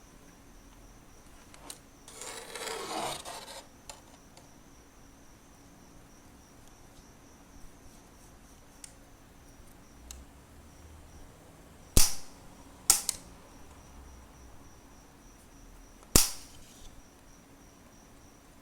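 Three sharp, loud clicks, two about a second apart and a third some three seconds later, after a brief scraping or rustling noise about two seconds in, over a faint steady high-pitched pulsing chirr.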